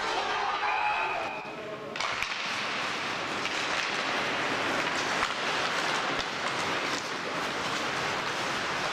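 Ice hockey game sound in an arena: a steady rushing noise of the rink and spectators, with a few sharp clacks of sticks and puck on the ice. The sound changes abruptly about two seconds in.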